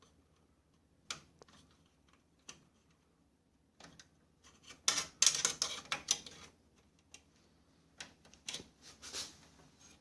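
Plastic parts of an HP LaserJet M5035 printer clicking and rattling as they are handled and unclipped, with single clicks early on, a dense burst of rapid clicking and clattering around the middle, and a few more near the end.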